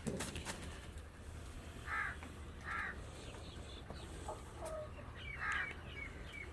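Birds calling: two short harsh calls close together about two seconds in and a third near the end, with a few thin chirps between and after them. A brief knock right at the start.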